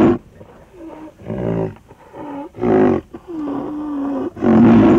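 Rhinoceros calling: a run of short pitched calls, with a longer steady call about three seconds in and loud calls at the start and near the end.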